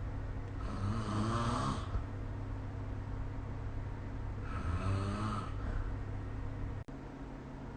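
A person snoring in sleep, recorded on a phone: two snores about four seconds apart, each a little over a second long, over a steady low hum. A short click near the end.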